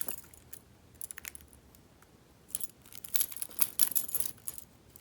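A warded pick set's metal picks clinking and jangling as they are handled and one is worked in a warded padlock's keyway: a few light metallic clicks, then a busier run of jangling about two and a half seconds in.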